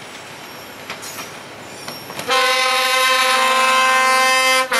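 Passenger train approaching with a low rumble, then its horn sounds a long blast from about halfway in. The horn stops briefly near the end and sounds again.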